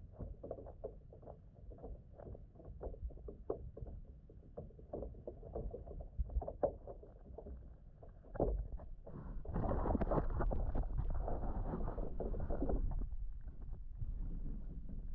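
Water splashing and sloshing: scattered small splashes, then a louder stretch of continuous splashing about two-thirds of the way in.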